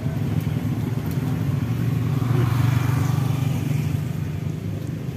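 Road traffic running steadily, with a motor vehicle passing that swells about halfway through and then fades.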